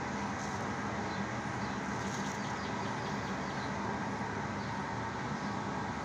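Steady outdoor street noise, a constant even rumble like distant traffic, with a few faint short bird chirps over it.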